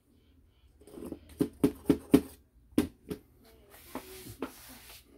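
Small brass pump parts handled in gloved hands: a quick series of sharp metal clicks and taps, then a second or so of rustling.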